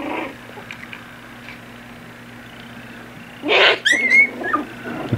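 Young puppy yelping in distress. About three and a half seconds in a short harsh squeal breaks a quiet stretch, then high-pitched cries follow that rise and fall.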